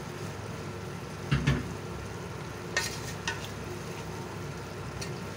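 Chicken masala sizzling in a large metal pot while a spatula stirs it, with a steady frying hiss. The spatula knocks against the pot once, loudly, about a second and a half in, with a few lighter clicks and scrapes after.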